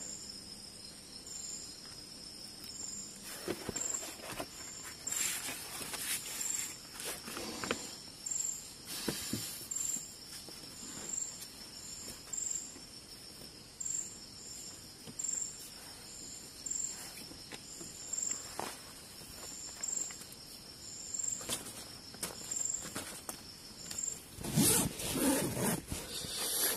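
Crickets chirping, with short high chirps repeating about one or two times a second over a steady high insect trill. Rustles of someone moving about inside a tent come and go over it, loudest a couple of seconds before the end.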